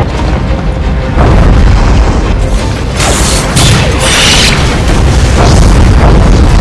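Loud monster-battle sound effects over music: a continuous deep booming rumble, with bursts of hissing noise about three to four and a half seconds in.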